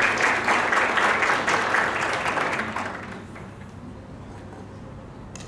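Audience applauding in a hall, the clapping fading out about three seconds in.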